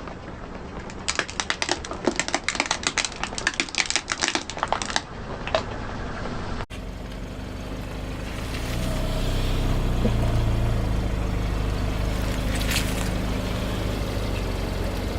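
Rapid crackling and snapping for about four seconds as crunchy objects are crushed under a car tyre. After a sudden cut, a car engine runs with a steady low rumble that swells slightly.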